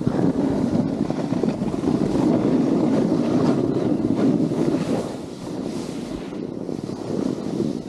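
Snowboard sliding and turning over groomed snow, a rough continuous scraping hiss, mixed with wind buffeting the microphone. It is strongest for the first five seconds and eases off briefly before building again near the end.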